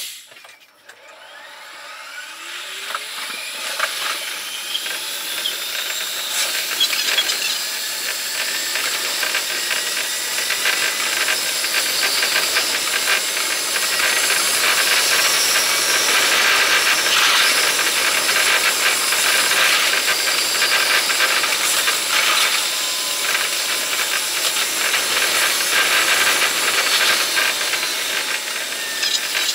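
Running sound of an electric commuter train heard from the front cab, played at five times speed. The motor whine rises in pitch as the train pulls away and gains speed. It then gives way to a dense, fast rattle of wheels on track with hiss, at a steady level.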